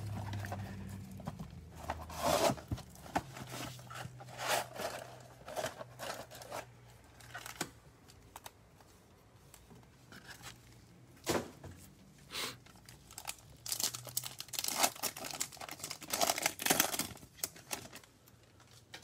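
Trading-card foil pack wrappers and a cardboard box being handled and torn open: scattered crinkling, tearing and scraping noises, busiest in a run of rustling near the end.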